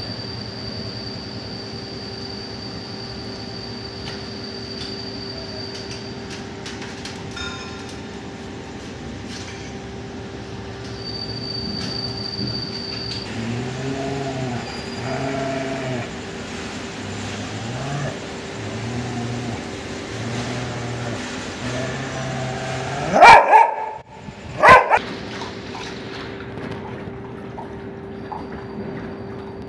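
Dog whining in a run of short, even-pitched whimpers, then two loud barks about a second and a half apart, over a steady hum.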